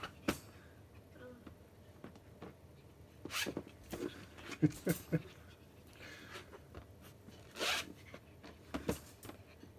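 Samoyed puppy shuffling and digging about on a fleece blanket: brief rustles a few times, and about halfway through three short low grunts.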